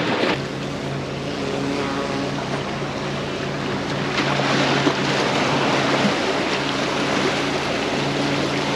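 Waves washing and breaking against jetty rocks, with a boat engine droning steadily in the background. The engine drone dips about six seconds in and comes back near the end.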